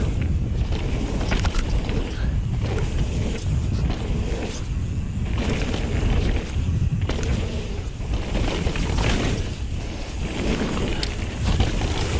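Wind buffeting an action camera's microphone, with the rumble of a mountain bike rolling over a dirt trail and scattered short rattles and clicks.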